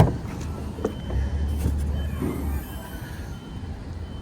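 Low, steady engine rumble of a passing dredge barge, with faint high squealing tones that slide slowly downward midway. A single sharp knock at the very start.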